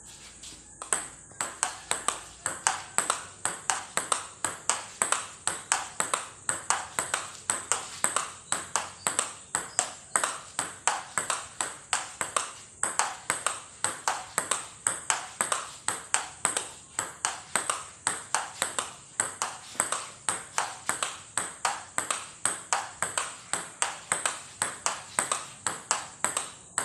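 Table tennis ball being hit in a forehand topspin drill: a steady, rhythmic run of sharp pocks as the ball strikes the paddle and bounces on the table, starting about a second in. A faint steady high-pitched whine runs underneath.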